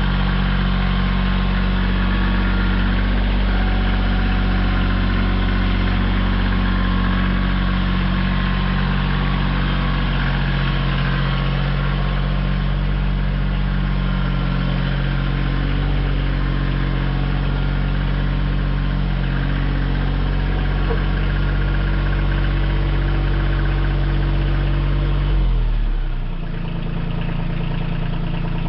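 Kioti CX2510 compact tractor's three-cylinder diesel engine running steadily at working speed. Near the end it is throttled back and drops to a lower idle.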